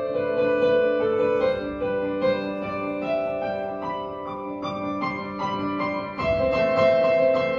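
Yamaha digital piano playing slow, sustained chords and melody notes, with a louder new chord struck about six seconds in.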